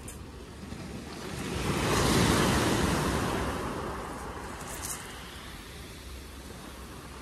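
Small waves breaking on a shingle beach: one wave swells up and breaks about two seconds in, then washes back over the stones and fades. A short click comes about five seconds in.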